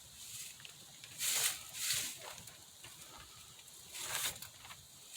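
Three short rasping scrapes as wood screws holding a speaker to a plywood baffle are hand-tightened with a screwdriver.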